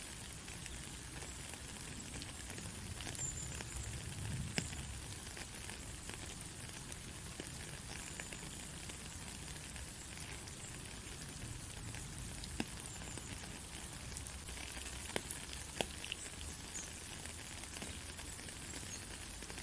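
Steady rain falling on a country road: an even hiss with scattered sharper drop ticks, and a few faint, short, high chirps now and then.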